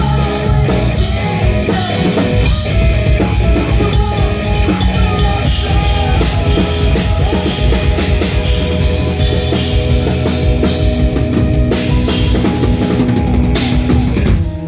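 Post-hardcore band playing live, loud, with a full drum kit, bass drum and cymbals driving under electric guitars. Near the end come a few heavy accented hits, then the drums stop and sustained guitar chords ring on.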